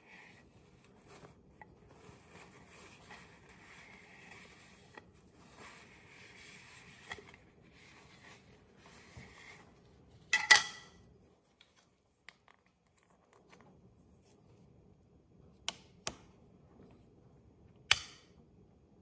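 Handling of a metal jar lid and a Simple Spread plastic lid-mounted knife on a countertop. Soft rubbing and fiddling comes first, then one loud clack with a short ring about halfway through. Near the end come three sharp clicks as the knife is fitted to the lid and its magnet snaps into place.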